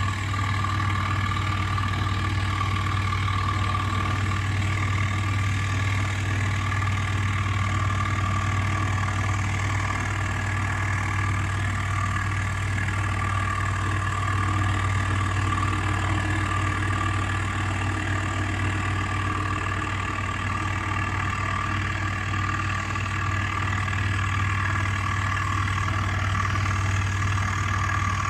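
Scroll saw with a spiral blade running steadily, with a strong motor hum and a higher steady whine, as it cuts wood.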